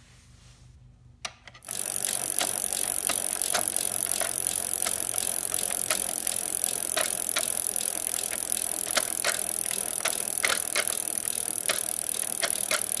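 Toy car wash playset's mechanism switched on and running: a steady whirr and hiss with irregular clicking and rattling, starting about a second and a half in.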